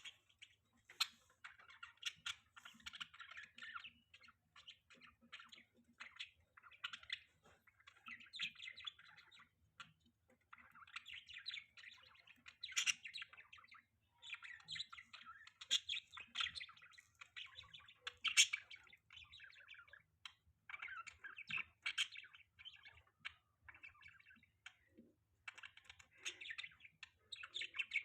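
Budgies chirping and chattering in continual bursts of fast warbling, with a few sharp clicks among them.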